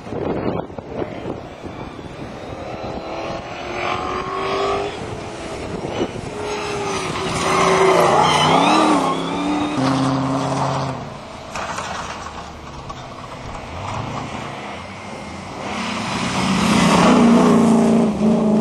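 Off-road 4x4 racing car engines revving hard, their pitch rising and dropping repeatedly. The engine noise swells loudest about halfway through and again near the end.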